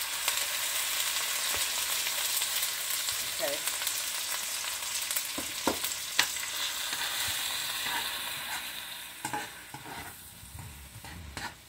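Finely chopped bell peppers and onions sizzling steadily in butter and avocado oil in a nonstick wok. A metal spoon gives a few sharp clicks as they are spooned in and stirred. The sizzling dies down near the end.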